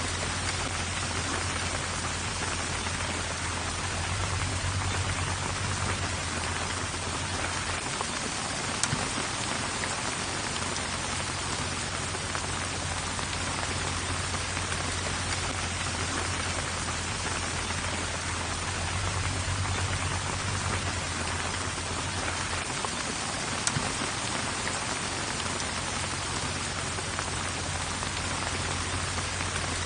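Steady rain falling with a constant hiss and a few louder single drop hits, over a low rumble of strong wind that drops out briefly twice.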